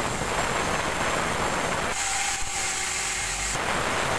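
Sawmill band saw ripping lengthwise through a wet petai log. The cutting noise eases for about a second and a half near the middle, leaving the blade running free, then the blade bites into the wood again.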